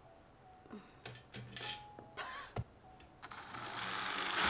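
Light clicks and knocks of handling, then a cordless drill starts to run about three and a half seconds in, building up as it drives a screw through a table leg bracket into the tabletop.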